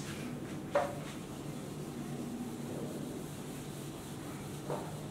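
Whiteboard eraser wiping across a whiteboard: a steady soft rubbing, with a light knock a little under a second in and another near the end.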